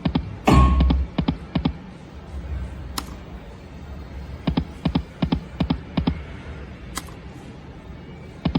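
Huff n' More Puff video slot machine's spin and reel-stop sound effects: sharp clicks in quick runs of several, as each round of reels lands, over the machine's quiet background music. One heavier low thump comes about half a second in.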